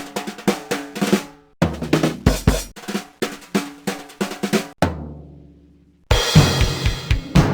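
Drum kit playing quick snare and bass drum fills. About five seconds in, a low drum rings out and dies away. After a brief silence a new beat starts, with the bass drum about four times a second under cymbals.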